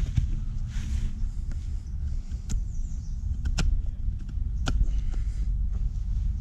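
Pieces of split hardwood knocking together as they are gathered up: a few sharp knocks, over a steady low rumble.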